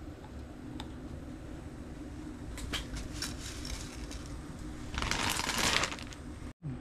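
Rustling and light clicks of things being handled, with a louder rustle lasting about a second near the end, over a faint low steady hum.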